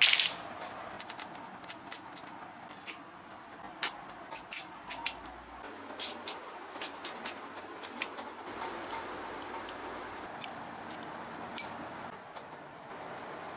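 Nylon cable ties clattering down onto cardboard, then a run of sharp, irregular clicks as a cable tie is ratcheted tight around a PVC and steel pipe. Near the end, small cutters snip off the tie's tail with a single sharp click.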